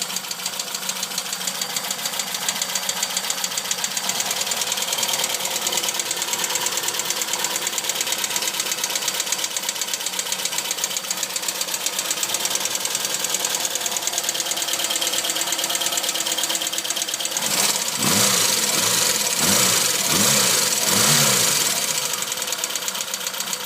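Tuned Opel Kadett B 1.2 S OHV four-cylinder engine running with a fast, steady ticking, which the owner takes for valve-train noise despite the valves being set to 0.2 mm; the engine has a sharp camshaft and high compression. Near the end the revs rise and fall a few times and it gets louder.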